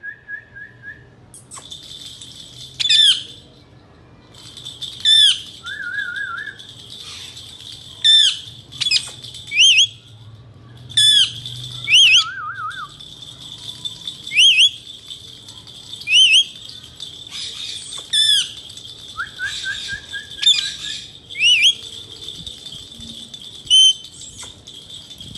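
Indian ringneck parakeet giving loud, shrill, repeated calls, about one every one to two seconds, with a few short, lower trilling notes between them.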